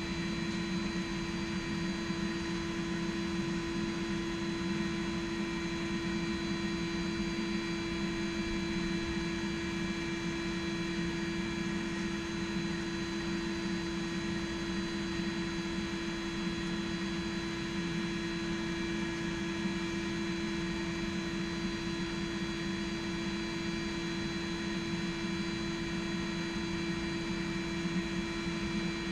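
Electric blower feeding air to a pan forge, running with a steady hum.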